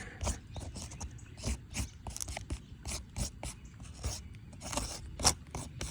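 Something writing on the gritty surface of an asphalt roof shingle: irregular short scratches and clicks as the mark is made.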